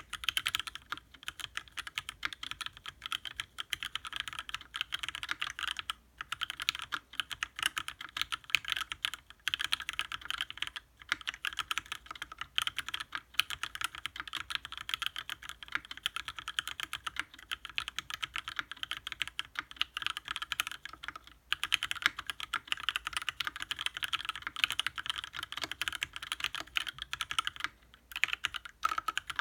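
Mechanical keyboard being typed on: lubed Gateron Ink switches in an aluminium-cased Salamander TKL with GMK keycaps. The keystrokes come in a fast, continuous stream of clicks, broken by a few short pauses.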